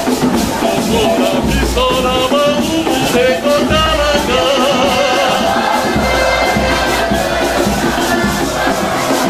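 Live church music: a man singing a melody into a microphone over a band with drums and a shaker.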